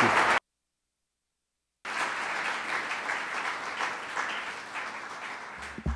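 Audience applauding. The applause drops out to dead silence for about a second and a half, then comes back quieter and fades away, with a low thud just before the end.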